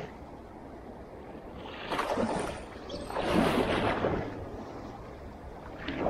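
Waves washing against a rock groyne: a steady wash of water with two swells about two and three and a half seconds in, and a shorter one near the end.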